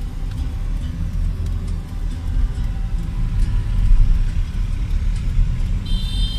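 Honda car driving, heard from inside the cabin: steady low engine and road noise.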